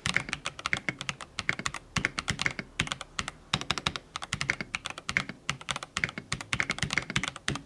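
Typing a full sentence on a Redragon K649 Elf Pro gasket-mounted mechanical keyboard: a quick run of key clicks, several a second, with brief pauses between words. The keystrokes stop near the end.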